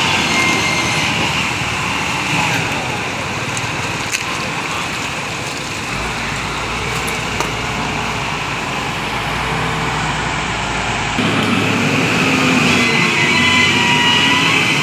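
Bulldozer engine running steadily with a faint high whine; the sound changes abruptly about six seconds in and again about eleven seconds in.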